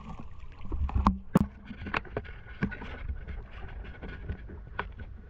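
Lake water sloshing and lapping around a camera held at the surface, with a steady low rumble and several sharp knocks, the loudest two about a second and a second and a half in.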